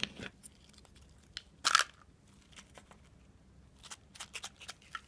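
Hands opening a chocolate surprise egg and its plastic toy capsule: scattered small clicks and crinkles, with one louder crunch about a second and a half in.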